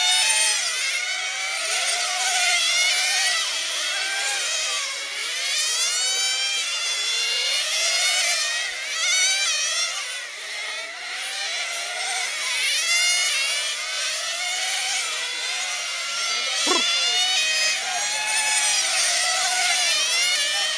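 Several 1/10-scale nitro RC touring cars' small two-stroke glow engines revving high, many overlapping and rising and falling in pitch as the cars accelerate down the straights and brake into corners.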